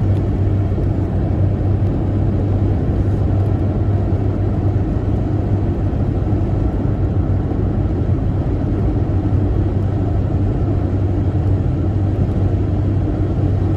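Vehicle engine running steadily, an even rumble with a constant low hum.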